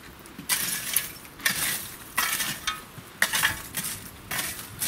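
Glowing charcoal in a brick barbecue pit being raked and spread with a long metal tool. It comes as about five scraping strokes, roughly one a second. The coals have burned down and are being levelled for grilling.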